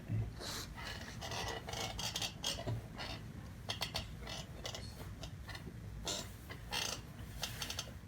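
Watercolor brush rubbing against the surface in short, irregular scratchy strokes, some quick runs of several strokes.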